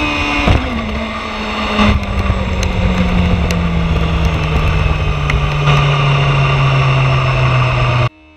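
Yamaha R6 sport bike's inline-four engine heard from its onboard camera over heavy wind rush, its note falling steadily as the bike slows, with sharp knocks about half a second and two seconds in. The sound cuts off abruptly near the end, leaving faint music.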